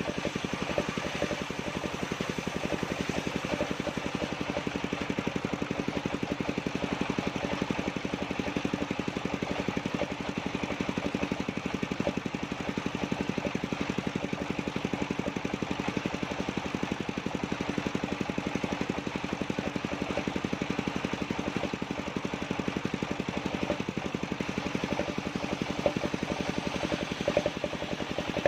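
Engine of a circular-saw sawmill running at a steady speed, an even mechanical drone that does not change.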